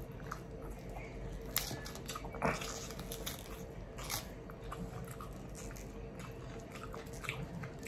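Crisp crackles and crunches of a raw cabbage leaf being folded and squeezed by hand around steak and rice, with a few sharper snaps, over a faint steady hum.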